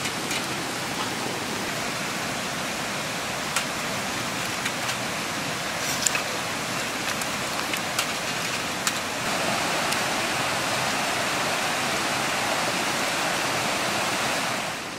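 Steady rushing noise of a nearby mountain stream, with a few light clicks. The rush gets louder about nine seconds in.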